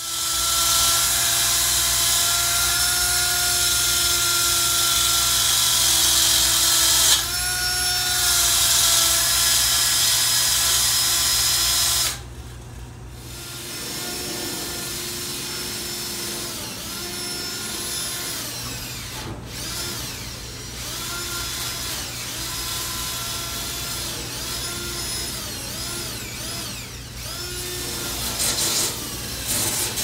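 A handheld power tool working on rusty baler sheet metal. For about twelve seconds it runs steadily with a loud high hiss. After a break it runs in repeated short spurts, its pitch dipping and recovering with each one.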